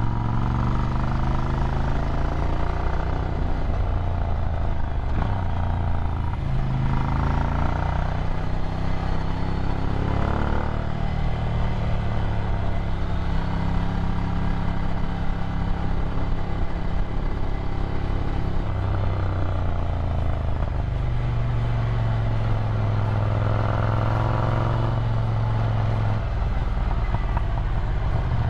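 Ducati Scrambler's 803 cc air-cooled L-twin running through a Termignoni exhaust while riding, its pitch falling and rising several times as the rider rolls off and back on the throttle and changes gear, with steadier stretches between.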